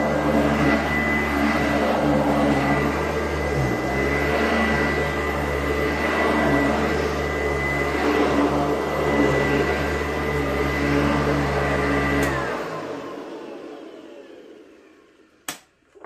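Sanitaire SC886 upright vacuum running over a rug with a steady whine. About twelve seconds in it is switched off and the motor winds down over a few seconds, its whine falling in pitch. A sharp click comes near the end.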